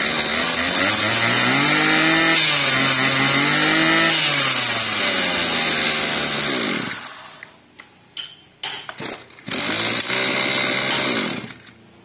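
Small two-stroke engine of a Maruyama 23cc brush cutter running and revving up and down, then shut off about seven seconds in. After a few knocks, an engine runs again briefly near the end and stops.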